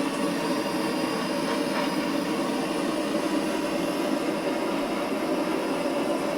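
Old gas blow lamp burning with a steady flame, heating a 15mm copper pipe elbow joint while the solder flows through it.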